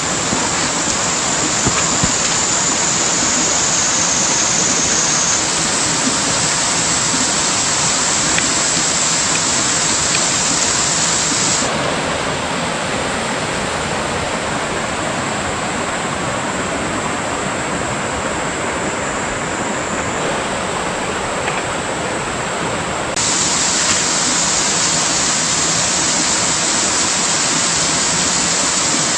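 Mountain stream rushing over rocks and small cascades: a loud, steady hiss of water. Its tone shifts abruptly a few times, losing some of its high hiss for a stretch in the middle.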